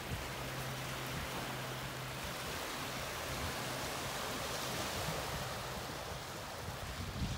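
Steady rushing outdoor noise, with a low hum for the first two seconds or so.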